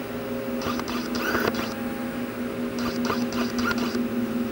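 Steady mechanical hum of shop machinery, with a higher rasping sound that comes and goes about every two seconds.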